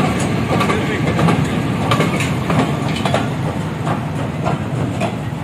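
Freight train of covered goods wagons rolling past at close range: a steady low rumble with irregular sharp clacks of the wheels over rail joints, ending with the brake van going by.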